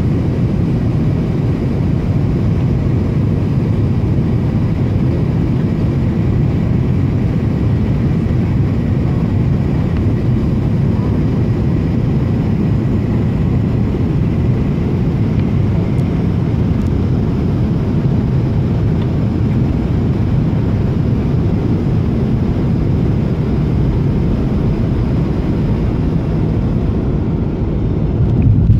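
Steady cabin noise of a McDonnell Douglas MD-80 airliner on final approach: a mostly low-pitched rush of airflow with its rear-mounted engines running. Right at the end a brief louder bump as the main wheels touch down on the runway.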